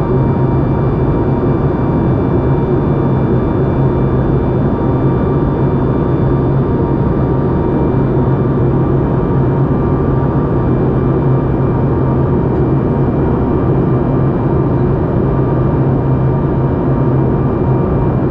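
Steady cabin noise of a Boeing 737 MAX 8 in flight, heard from a window seat near its CFM LEAP-1B engine: an even rush of engine and airflow noise over a steady low hum, with faint thin whining tones above it.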